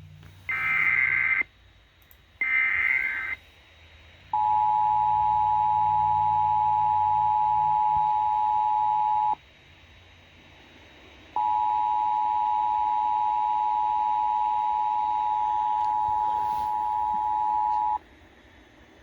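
Emergency Alert System tones: two raspy bursts of SAME digital header data, then the two-tone EAS attention signal (853 and 960 Hz together), sounded twice as steady held tones of about five and six and a half seconds with a short gap between them, announcing an alert.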